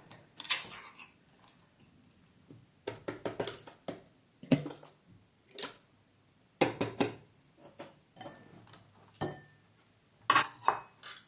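Metal kitchenware knocking and clinking as a tin of peeled tomatoes is emptied into a food processor bowl: a string of separate short knocks and scrapes with pauses between them.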